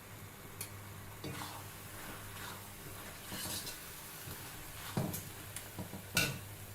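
A cooking utensil stirring and scraping in a pot, with a few clinks and knocks against the pan, the sharpest near the end, over a low steady hum.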